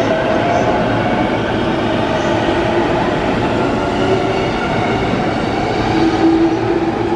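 E233-1000 series electric commuter train pulling out of the station and picking up speed past the platform: wheels running on the rails with steady whining tones from its drive, loud and continuous.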